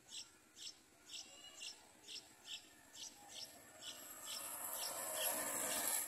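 Yellow-vented bulbul nestlings begging at the nest: short, high chirps repeated evenly about twice a second. A broad rushing noise swells over the last two seconds and drops off at the end.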